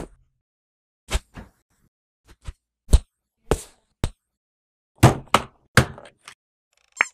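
Cartoon fight sound effects: a dozen or so sharp knocks and whacks at uneven spacing with silence between, several coming close together about five to six seconds in, ending in a brief squeak.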